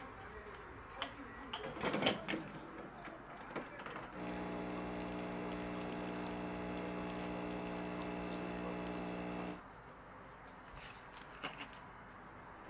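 A few light clicks and knocks, then an electric appliance starts a steady, even hum about four seconds in. It runs for about five seconds and cuts off suddenly.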